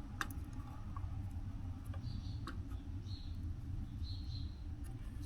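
Solder joints on a circuit board being reworked with a soldering iron: a few faint clicks and three brief soft sizzles over a steady low hum.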